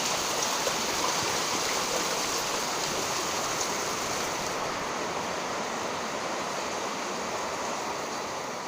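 Heavy rain falling in a steady, dense hiss that eases slightly toward the end.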